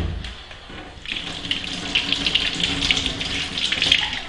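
Kitchen tap running into a sink as dishes are washed, with small clatters over the water; a sharp thump right at the start.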